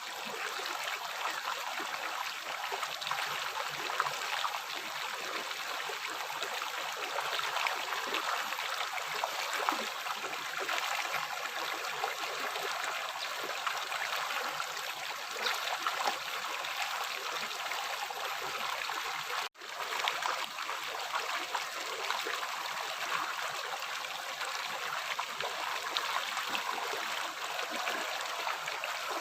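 A river flowing, a steady rush and trickle of water with little deep rumble. It cuts out for an instant about two-thirds of the way through.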